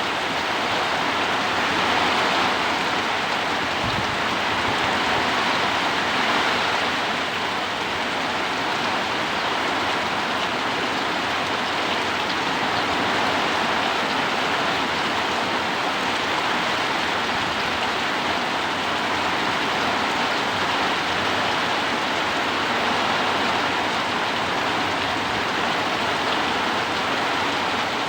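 Heavy rain falling steadily in strong wind, a dense even hiss of rain on surfaces, swelling slightly a couple of times in gusts.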